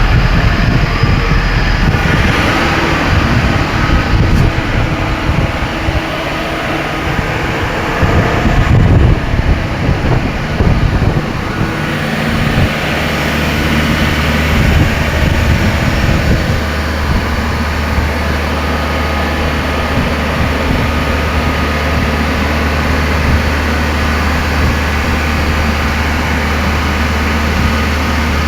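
Thermo King truck refrigeration unit running: a loud, steady machine noise that is rougher at first and settles into an even low drone about twelve seconds in.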